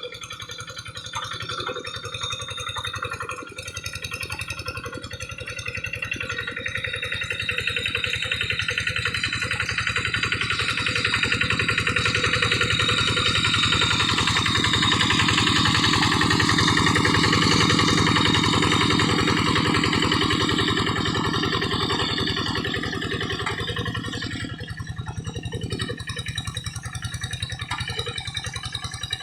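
Quick G1000 hand tractor's engine running steadily while it drags a harrow through paddy mud, growing louder toward the middle and then easing off again.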